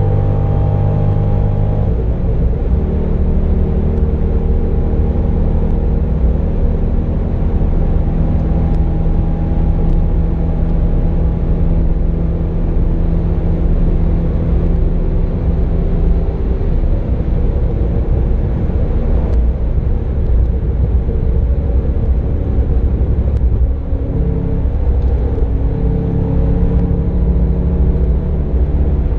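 Chevrolet Corvette C6's 6.0-litre LS2 V8 engine at speed, heard from inside the cabin over heavy road and wind rumble. Its pitch rises, then drops as it shifts up about two seconds in, and it runs fairly steadily after that with a few further changes in pitch.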